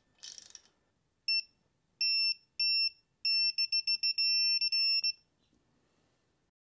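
Digital click-type torque wrench beeping as a cylinder-head nut is pulled up to torque. It gives one short beep, then two longer beeps, then a fast run of beeps. This signals that the wrench is nearing and reaching its set torque, here 15 ft-lbs.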